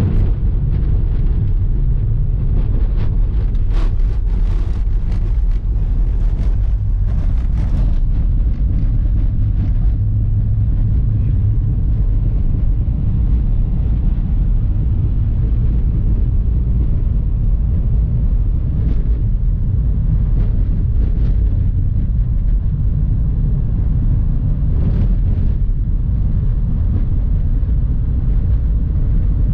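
Steady low drone of a van's engine and tyres rolling on a snow-packed road, heard from inside the cab. A run of sharp clicks and rattles comes a few seconds in, with a few more later.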